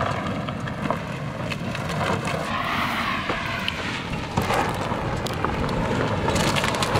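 Ex-police Ford Crown Victoria's V8 engine running hard as the car slides around a dirt rallycross track.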